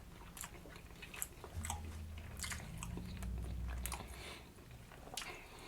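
Close-miked chewing of a saucy fried-chicken sandwich: soft wet mouth clicks and smacks, fairly quiet.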